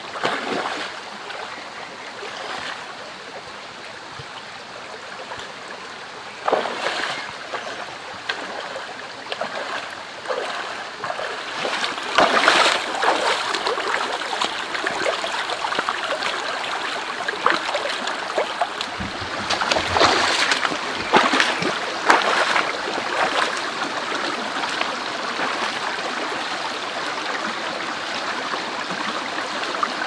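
Shallow mountain stream running over rocks, with splashes of combat boots wading through the water, several of them clustered around the middle.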